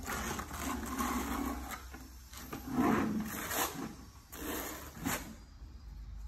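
Trowel scraping wet tile mortar, first in a bucket and then spreading it across the floor, in several uneven strokes.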